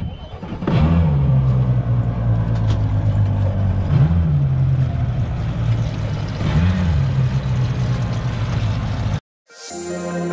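Triple Mercury Racing 400 four-stroke outboard engines running at idle, with two brief throttle blips where the pitch rises and falls back. The engine sound cuts off suddenly near the end, and soft background music begins.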